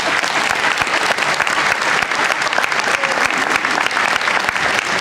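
Audience applauding: a steady, dense mass of clapping.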